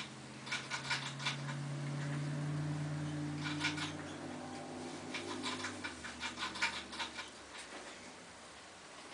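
Quick runs of light clicks and scratches, a few short bursts, over a low droning tone that fades out about six seconds in.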